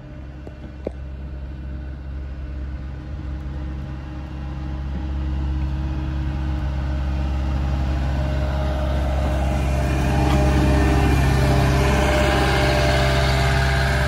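Caterpillar skid steer's diesel engine running while it plows snow. It grows steadily louder as the machine comes close and is loudest about ten seconds in.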